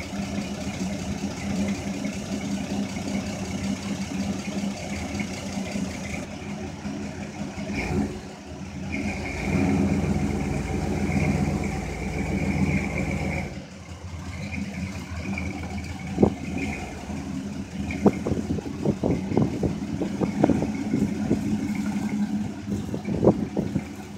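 Chevrolet 350 V8 in a 1969 C10 pickup running warm after a cold start, with a steady idle hum that swells louder for several seconds in the middle. Over the last third, sharp crackles and pops sound over the engine as the truck backs out.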